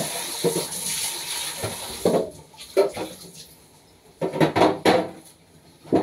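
Food containers and packets being handled in and out of a refrigerator: a steady hiss for about the first two seconds, then a run of separate short knocks and clatters.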